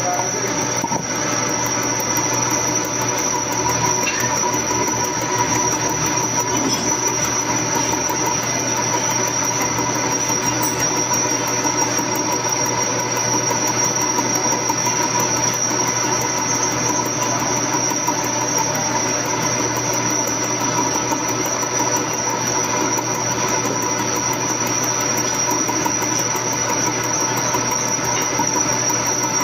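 Milling machine cutting a metal shaft with a small end mill, a steady high-pitched squeal from the cutter on the metal over the machine's running noise.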